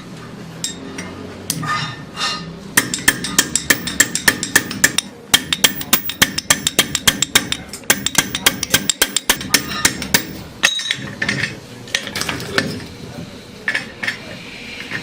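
Metal being struck repeatedly in a workshop: quick, ringing taps and clinks, several a second, densest through the middle stretch with sparser knocks at the start and near the end.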